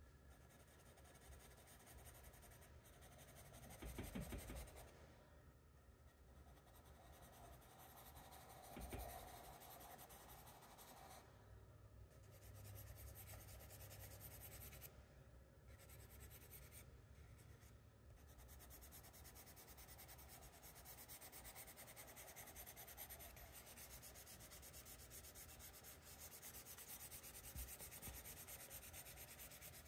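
Faint scratching and rubbing of a charcoal stick shading on drawing paper, with two soft low bumps along the way.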